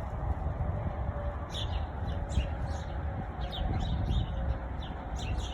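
Birds chirping in repeated short, quickly falling notes, in little clusters, over a steady low rumble.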